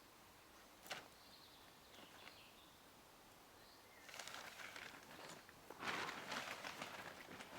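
Faint bird chirps, then a rustling noise that starts about halfway in and grows louder near the end.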